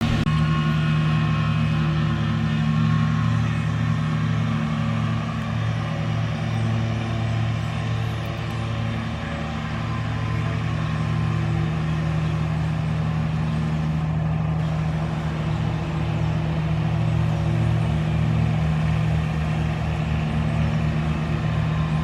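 An engine running steadily at an even speed, with a low, constant hum.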